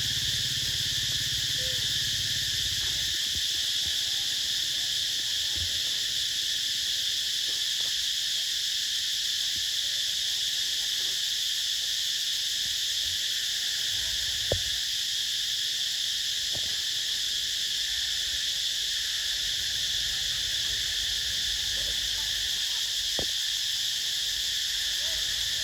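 Steady high-pitched insect chorus, with one sharp click about halfway through.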